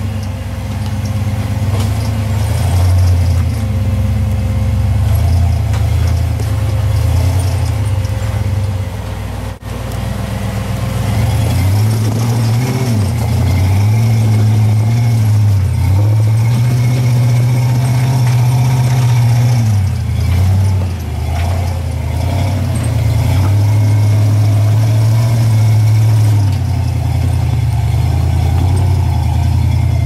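Engine of a Toyota FJ40 rock-crawler buggy running at low revs under load as it crawls over rocks. Its pitch rises and falls repeatedly as the throttle is worked, most in the middle of the stretch.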